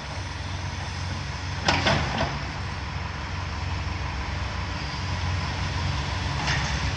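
Heavy engine running steadily with a low rumble, with a couple of sharp clanks about two seconds in and a lighter one near the end.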